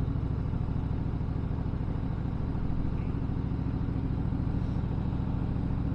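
Harley-Davidson Softail Fat Boy Lo's V-twin engine running steadily at an even, low pitch.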